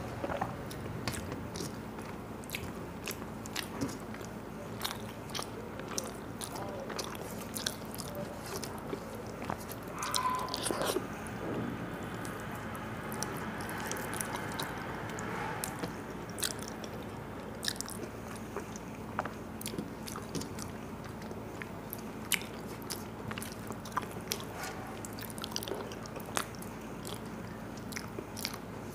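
A person eating close to the microphone: biting and chewing mouthfuls of rice and vegetable curry, with many short wet clicks and smacks of the mouth over a faint steady hum.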